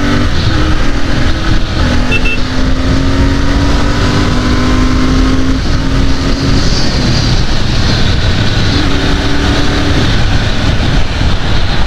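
Royal Enfield 650 parallel-twin motorcycle engine running steadily at road speed, with wind rushing over the microphone.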